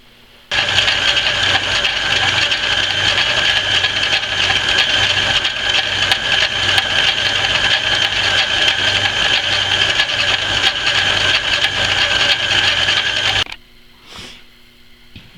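Antique Rockford metal lathe running steadily while a boring bar with a high-speed steel bit takes a test cut in a steel part, a loud even mechanical whir with a low pulsing hum. It starts about half a second in and stops abruptly near the end.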